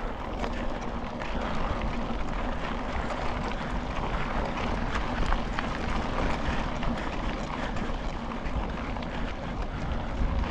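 Mountain bike rolling over a loose gravel forest track: tyres crunching on the stones with constant small ticks and rattles, under a steady rush of wind on the microphone.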